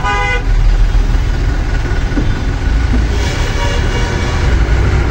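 Bus engine and road rumble heard from inside the bus cabin as it drives through traffic, steady and loud. A vehicle horn sounds briefly at the very start.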